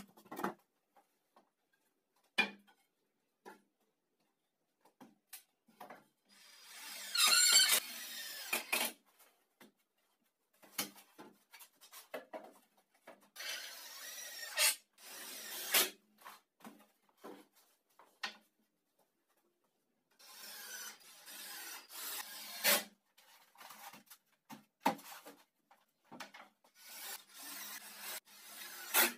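Cordless drill boring into wood and driving screws in short separate bursts, with sharp knocks of wooden boards being handled between them.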